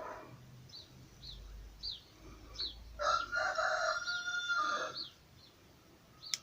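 A rooster crows once, a single held call of about two seconds, midway through. Short high chirps of a small bird repeat throughout, and there is one sharp click near the end.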